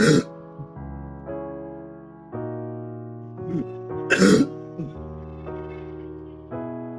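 A person with a bad cough coughing hard, once at the start and again about four seconds in, over soft piano music.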